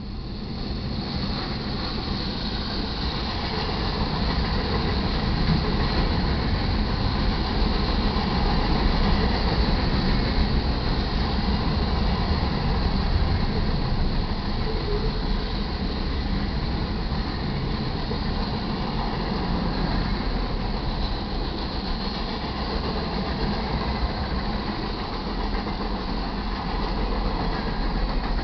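Freight train cars rolling past: a steady rumble and clatter of steel wheels on the rails, growing louder over the first several seconds and then holding.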